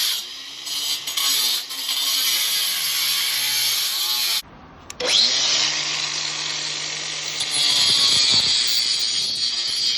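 Hand-held electric power tool running under load with a harsh, gritty noise. About halfway it stops briefly, then starts again with a rising whine and runs on with a steady hum.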